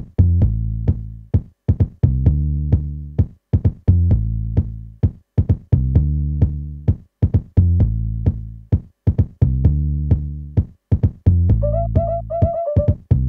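Sample-based electronic music played live: a drum-machine beat of sharp ticks, about four a second, over deep bass notes that swell and fade. A short higher melody comes in near the end.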